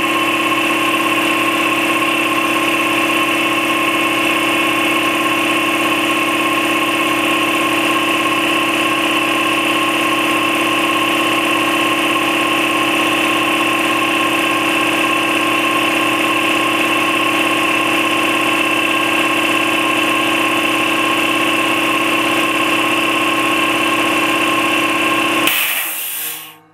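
Campbell Hausfeld 60-gallon twin-piston air compressor, with a 3.2 hp 240 V electric motor, running steadily as it pumps up the tank. Near the end it reaches its shutoff pressure and the pressure switch kicks it off: a brief hiss of air, then it stops.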